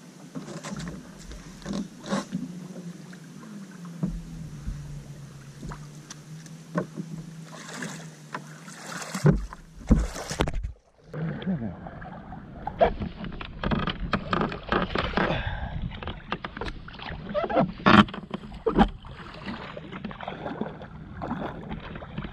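Jet ski engine running on the water, a steady low hum for about the first half. After a brief drop-out near the middle, the sound turns rougher and choppier, with irregular splashing and wind noise over the engine.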